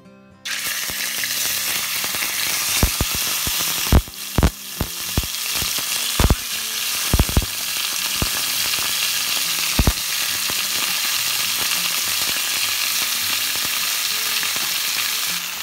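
Thin slices of beef steak sizzling in hot oil in a stainless steel frying pan. The loud, steady sizzle starts suddenly about half a second in, with sharp pops between about three and ten seconds in.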